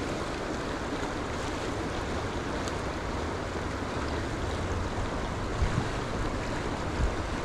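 Steady rush of a fast-flowing creek, its current running hard over the rocks.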